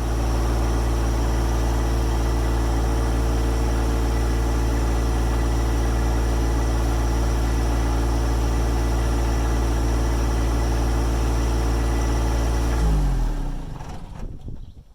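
John Deere 1025R subcompact tractor's three-cylinder diesel engine running steadily. About thirteen seconds in, its pitch drops and it winds down and fades away, as when the engine is shut off.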